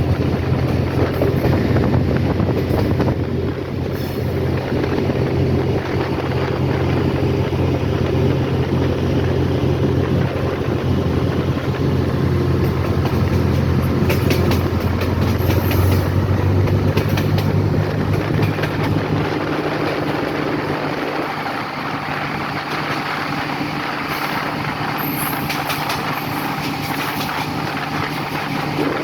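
A vehicle running steadily, with a low engine hum whose tone shifts about two-thirds of the way through.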